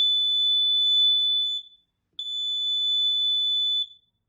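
Kidde carbon monoxide detector's alarm sounding on test: two long, loud, high-pitched beeps of nearly two seconds each, with a short gap between. The alarm going off on test shows the detector is working.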